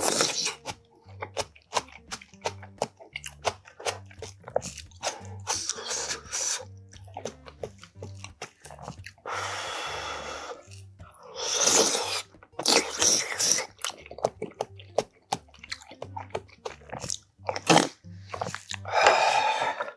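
Close-miked eating: wet chewing and crunching with many short mouth clicks, a breath blown over a hot spoonful of stew about halfway, then loud slurping of the stew. Faint background music with a steady low beat runs underneath.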